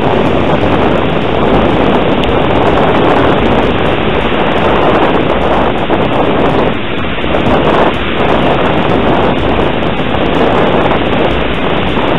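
Wind rushing over the microphone of a small camera hanging from a kite line: a loud, steady roar with a couple of brief dips in level.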